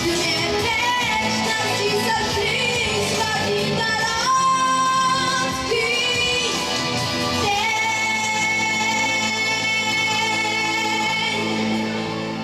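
A boy with an unbroken treble voice sings a pop ballad over backing music. He ends the phrase on one long held note, from a little past halfway to the end.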